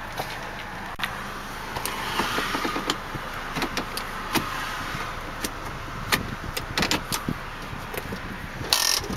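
A 2005 Volkswagen Passat's 1.8-litre turbocharged four-cylinder engine idling steadily, heard from inside the cabin. Scattered light clicks come from the interior controls being handled, and there is a short louder noise near the end.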